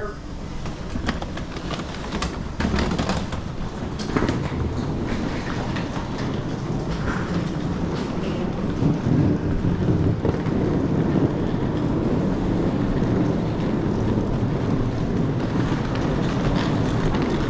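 Airport terminal hall noise while walking: a steady rumbling hum of the hall and people, with scattered clicks and knocks.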